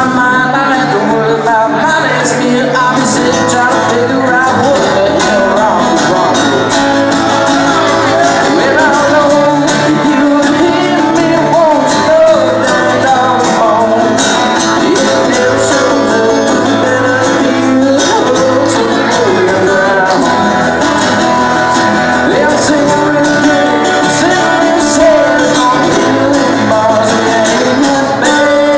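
Live acoustic music: two acoustic guitars strummed with a woman singing into a microphone.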